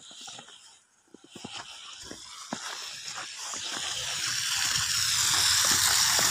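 Footsteps crunching in snow, then car tyres hissing through slush on the road, growing steadily louder as the car comes closer.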